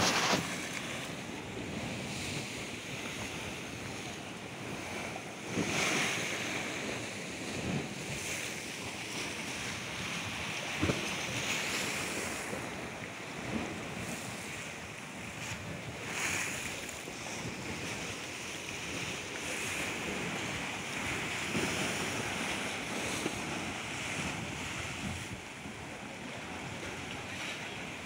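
Sea waves breaking and washing over a rocky reef edge, a continuous rushing wash that swells every few seconds, with wind buffeting the microphone.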